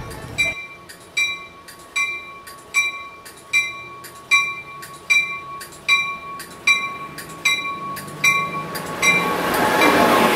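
Pacific Surfliner train pulling into a station, its bell ringing steadily about once every 0.8 seconds. Near the end the rumble of the cars rolling past close by swells up.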